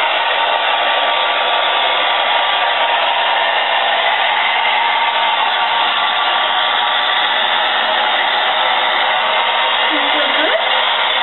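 Handheld blow dryer running steadily, an even blowing hiss with no breaks.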